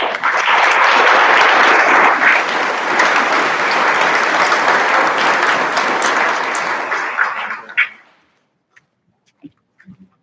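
Audience applauding, starting suddenly and dying away about eight seconds in.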